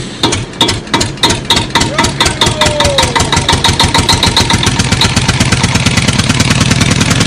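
Motor engine sound effect: chugging beats that speed up from about three a second to a fast, steady run, like an engine starting and then idling.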